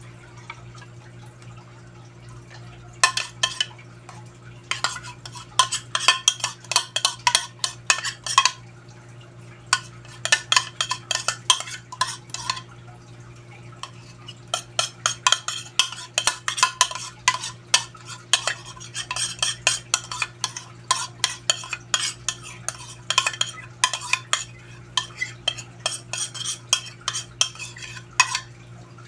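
A spoon scraping and tapping against a plastic bowl in quick runs of clicks, with short pauses, as a dissolved chocolate mixture is scraped out into the pot. A steady low hum runs underneath.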